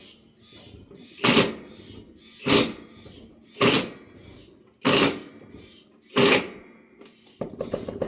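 Repeated work on a riding lawn mower wheel: five loud, evenly spaced strikes about a second and a quarter apart, then a quick run of rattling clicks near the end.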